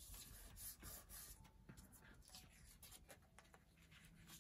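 Faint paper rustling and rubbing as hands press and smooth a glued paper journal page onto a fabric hinge, with soft handling noises as the pages are folded over.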